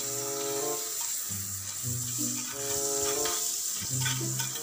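Margarine sizzling in a hot pan, a steady hiss, under background music with a melody of held notes over a bass line.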